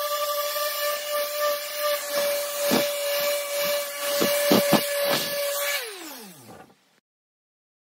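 Random orbital sander running on an oak slab, a steady whine over the hiss of sanding, with a few knocks in its second half. Near the end it is switched off, and its whine drops in pitch as it spins down.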